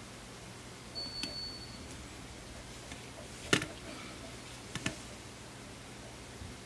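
A few sharp clicks of small repair tools on the phone's internal parts, over a faint steady hum: a few faint ticks about a second in, one sharp click about halfway, and a quick double click shortly after.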